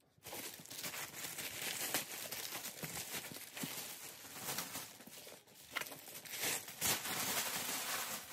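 Clear plastic wrapping bag crinkling and rustling as it is handled and pulled off a new backpack.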